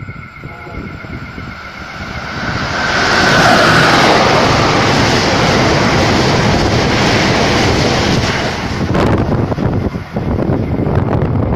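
Amtrak Northeast Regional train led by a Siemens ACS-64 electric locomotive passing at speed on the track beside the platform. The rushing noise builds about two seconds in, stays loud for several seconds as the Amfleet cars go by, and drops off about nine seconds in, followed by wind gusts on the microphone.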